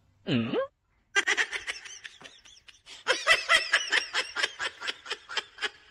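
A person laughing: a quick, unbroken run of giggles starting about a second in. Just before it, a short sound that drops in pitch and then rises again.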